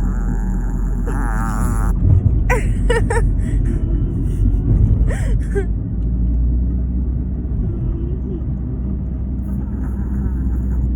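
Chihuahua snoring over a steady low rumble, with a few short, sharper sounds about two and a half to three seconds in and again around five seconds in.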